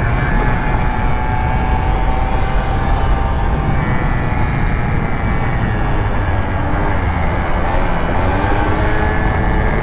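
Piaggio Zip scooter's small engine running under way, its note drifting up and down a little through the bends, over a heavy rumble of wind on the microphone.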